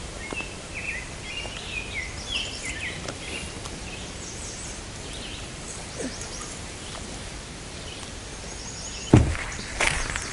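Songbirds chirping in short calls over a steady outdoor background hiss, busiest in the first few seconds. Near the end a single loud thump and a few knocks, as the camera is picked up and handled.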